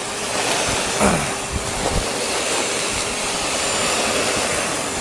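Old Eureka vacuum cleaner's motor running steadily as a blower: a steady whine over a rush of air, with a brief falling sweep about a second in.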